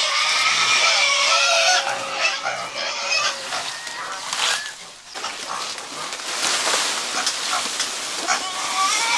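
High-pitched squealing from farm animals, one long call for about the first two seconds and shorter ones after it. From about six seconds in, rustling and crackling of leafy green fodder being handled and dropped into a concrete feed trough.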